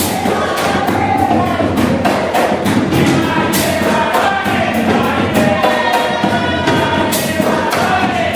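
Jongo drums played together with a drum kit in a fast, dense rhythm with frequent cymbal strikes, under group singing.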